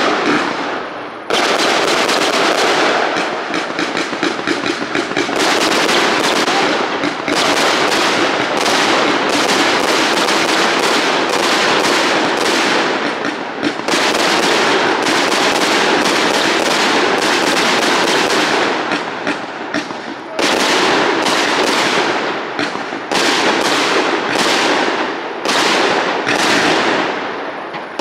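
Fireworks display: a dense, almost unbroken run of rapid bursts, with fresh loud volleys setting in every few seconds.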